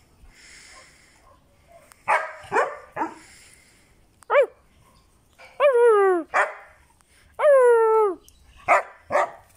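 White Swiss Shepherd barking, starting about two seconds in: a quick run of three sharp barks, then a mix of short barks and longer drawn-out barks that hold their pitch and drop at the end. It is play barking, aimed at its owner because it wants to play.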